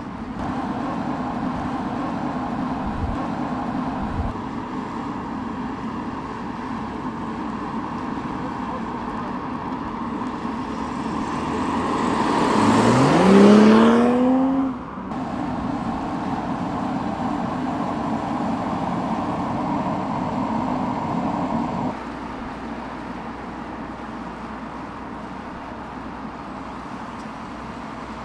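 BMW 4 Series coupé driving, a steady engine and tyre noise. About halfway through the engine revs up under acceleration in a rising tone, the loudest part, which cuts off abruptly. The drive noise drops to a quieter level about three quarters of the way through.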